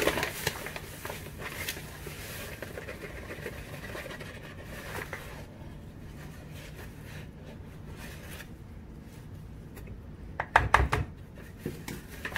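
Rustling and scratching of a paper packet being handled, with scattered sharp clicks. About ten and a half seconds in comes a short cluster of knocks, the loudest sound.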